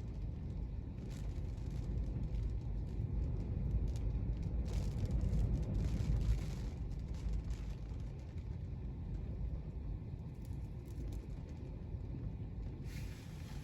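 Low, steady road and engine rumble of a car heard inside the cabin while driving, swelling for a couple of seconds around the middle.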